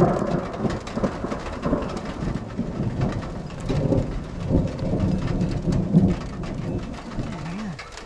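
Rain falling, with many sharp drop taps, under rolling thunder that rumbles loudest at the start, eases, swells again about four to six seconds in, and dies away near the end.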